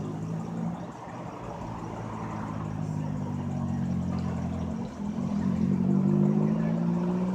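Car engine running, then louder with a slowly rising pitch from about five seconds in.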